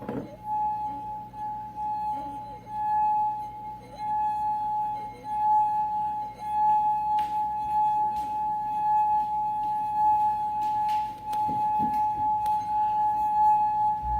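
Wine glass with water in it, sung by rubbing its rim: one steady ringing tone at a fixed pitch, with a faint overtone above it, swelling and fading about once a second.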